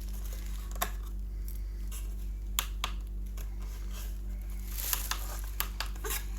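Scattered sharp clicks and taps of a plastic toy bus being handled, about seven in all, over a steady low hum; the toy's horn gives no sound.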